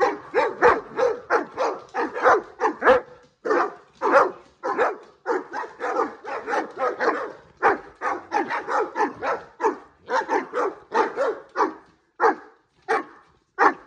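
Saint Bernards barking excitedly in a rapid string, two to three barks a second, thinning out near the end.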